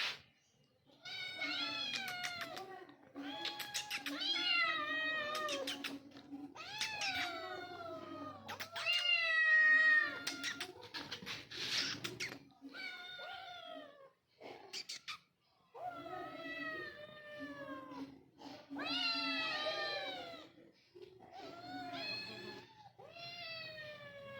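Domestic cats meowing over and over, about a dozen drawn-out calls, each one to two seconds long and most falling in pitch. They are crying to be given their milk.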